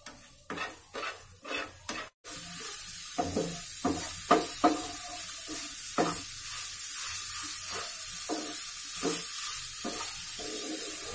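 Egg whites sizzling in a nonstick frying pan while a spoon, then a spatula, scrapes and crumbles them in irregular strokes. After a brief gap about two seconds in, the sizzle is steady and louder under the scraping.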